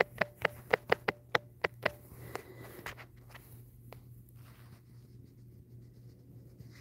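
Quick run of about nine taps typing on a smartphone touchscreen keyboard, a few a second, stopping about two seconds in. Then come two fainter single taps, over a faint steady hum.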